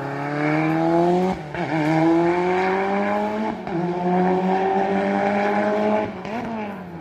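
Race car engine accelerating hard through the gears. The revs climb steadily, drop at upshifts about a second and a half and three and a half seconds in, and climb again. About six seconds in it lifts off, and the revs rise and fall briefly as it slows.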